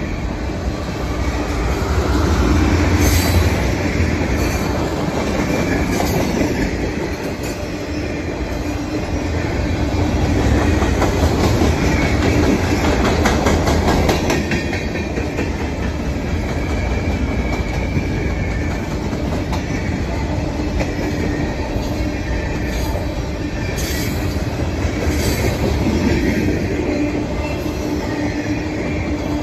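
Freight cars of a long mixed train rolling steadily past: a continuous rumble of steel wheels on rail with rhythmic clacking over the rail joints, and a faint wheel squeal that comes and goes.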